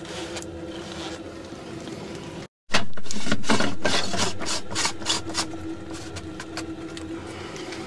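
Plastic pool pump strainer lid being handled and twisted by hand, a run of scraping, rubbing clicks over a steady low hum. The sound drops out briefly about two and a half seconds in, then comes back louder.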